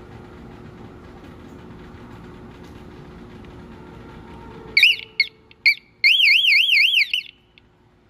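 Battery-powered exit-door alarm on a panic bar sounding as a fresh 9-volt battery is connected. About five seconds in it gives three short high chirps, then a fast warbling high-pitched alarm tone for just over a second that cuts off. It shows the dead battery was why the alarm stayed silent.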